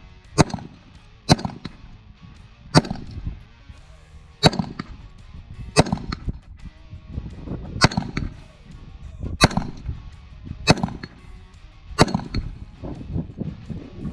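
AR-style rifle fired one shot at a time at a steady pace, nine shots about one to two seconds apart, each with a short ringing tail and a low rumble of noise between shots.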